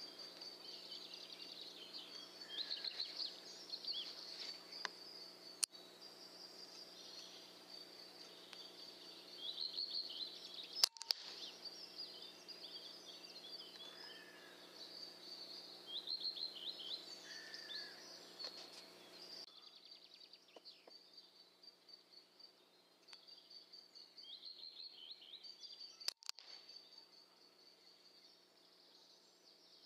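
Faint outdoor birdsong: small birds chirping in short trilling phrases, over a low steady hum. A sharp click comes about eleven seconds in, and two fainter clicks come elsewhere.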